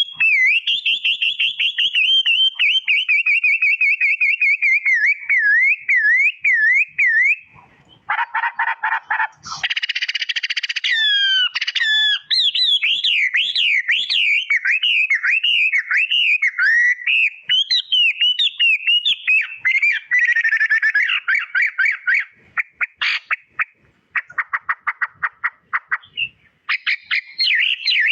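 Songbird singing a long, fast warbling song of rapid up-and-down whistles, broken by stretches of harsh rattling chatter in the middle.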